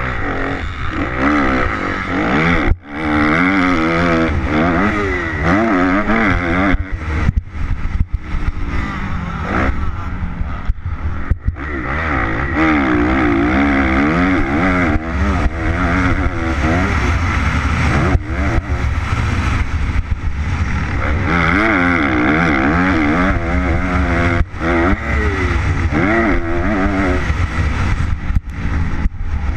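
Single-cylinder four-stroke engine of a 2013 Kawasaki KX250F motocross bike, heard from a camera on the bike, revving up and falling back over and over as it is ridden hard, with a heavy low wind rumble on the microphone.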